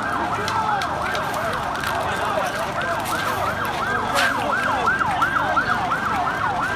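Emergency vehicle siren in a fast yelp, about three rising-and-falling sweeps a second, held steady over a noisy background.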